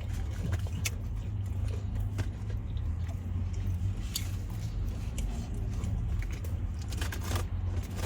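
Close-miked chewing and mouth sounds, with a few sharp clicks spread through, over a steady low hum.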